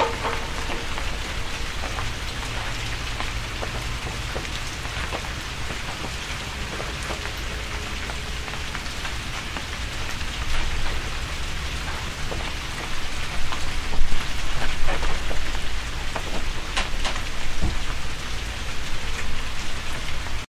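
Steady rain-like patter with scattered sharper drops and a low rumble underneath. The patter grows louder and more uneven about halfway through, then cuts off abruptly at the very end.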